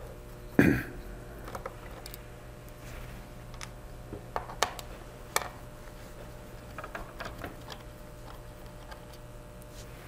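Small clicks and taps of a PH0 Phillips screwdriver working the bottom-panel screws of a laptop, with the screws set down one by one, over a low steady hum. A single thump about half a second in is the loudest sound.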